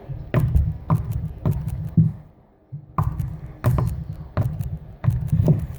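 Homemade slime being squished and poked by hand, giving an irregular series of small clicks and pops, with a short pause about halfway through.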